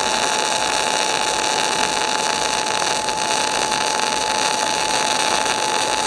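MIG/MAG welding arc from a 500-amp semiautomatic welder burning steadily with a dense crackling hiss, laying a bead on thick steel at high current. A steady high whine runs alongside.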